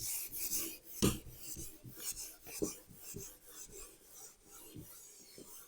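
Someone writing by hand: a run of short scratchy strokes, with a few light knocks of the writing tool on the surface.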